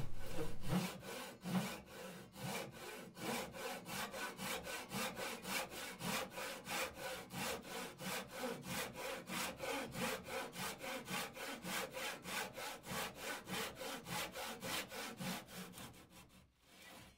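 Japanese pull saw cutting a 45-degree miter through a mahogany strip in a wooden miter box: a steady run of short saw strokes, about three a second, dying away near the end.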